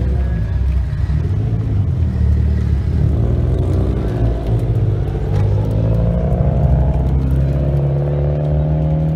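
Engines and exhausts of lowered cars driving slowly off one after another: a deep, steady rumble, with the engine pitch rising through the second half as a car accelerates away.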